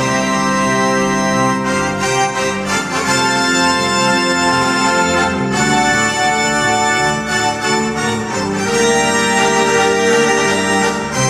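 Organ music: sustained chords that change every one to three seconds.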